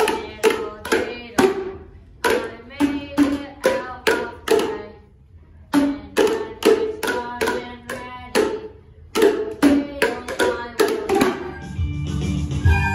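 Boomwhackers, tuned plastic tubes, struck in rhythm to play a melody one short pitched note at a time, with a brief pause about five seconds in. Near the end, recorders take over with steady held notes.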